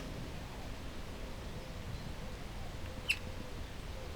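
A single light metallic click about three seconds in from the Blaser R8 rifle's action being handled as the working parts are worked, over a quiet background.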